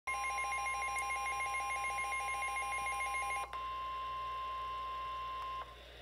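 NOAA Weather Radio warning alarm tone, a steady single pitch near 1 kHz, coming through a Midland weather alert radio's speaker. For the first three and a half seconds a rapid beeping alarm sounds over it. The tone then continues alone and stops shortly before the end, signalling that a warning broadcast is about to follow.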